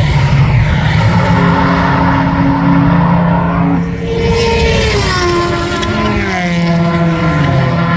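Race car engine running hard as it passes close by, its pitch falling from about four seconds in as it goes past and away.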